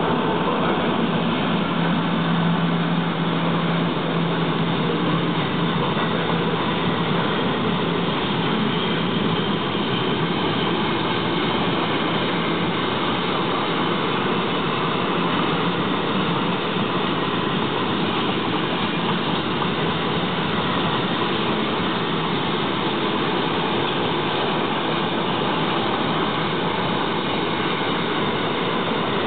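Steady rolling noise of a passing freight train's intermodal wagons, steel wheels running on the rails. A low hum from the MÁV V63 electric locomotive fades out over the first several seconds.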